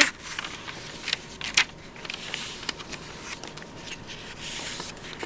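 Paper pages of a scrapbooking daybook being turned and handled: a soft rustling with a few sharp light taps.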